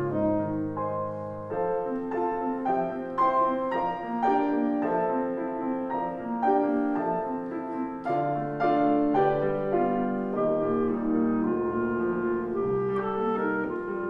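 Clarinet and piano playing a classical piece together: the piano plays a quick run of short notes under the clarinet's held notes.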